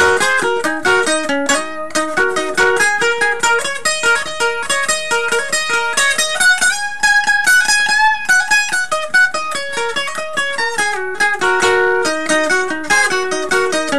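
Twelve-string acoustic guitar played solo in a blues instrumental break, with quick picked melody notes over repeating lower notes.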